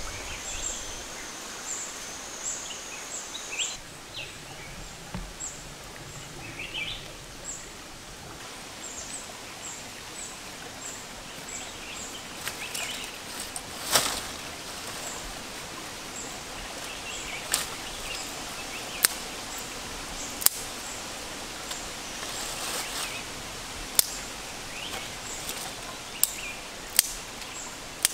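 Forest ambience: a steady hiss with small birds chirping, short high chirps repeating through the first third. From about halfway on, sharp knocks or cracks come every one to three seconds.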